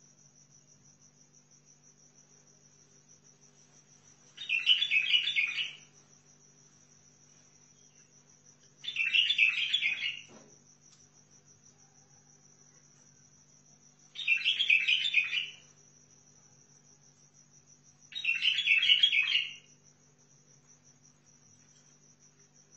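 White-eared bulbul singing four short, bubbling song phrases, each just over a second long, repeated about every four and a half seconds. A steady, fast-pulsing high trill runs underneath throughout.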